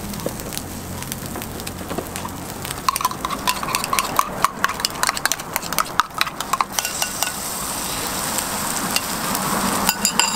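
A metal spoon beating egg and shredded cabbage in a small steel cup, with quick clinking against the sides, over the steady sizzle of a flat-top griddle. About seven seconds in the clinking stops and the sizzling grows louder as the egg mixture goes onto the hot griddle.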